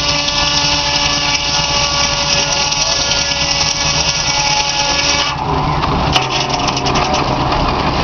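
Belsaw sawmill's circular saw blade cutting through a log, a loud steady whine with several ringing tones. About five seconds in the cut ends: the high whine drops away suddenly, leaving the spinning blade and the mill running with rapid clicking and knocking.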